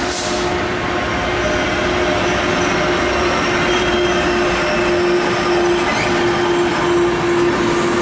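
Intercity train hauled by an E402B electric locomotive arriving at a station: the locomotive passes, then its carriages roll by. A steady whine runs under the rolling noise, breaking off now and then.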